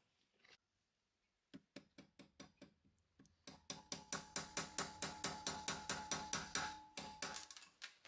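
A hammer taps a small screwdriver, used as a punch, to drive the pad retaining pin out of a Ducati Scrambler's rear brake caliper. A few light knocks come first, then a quick even run of metal strikes, about five a second, with a ringing note.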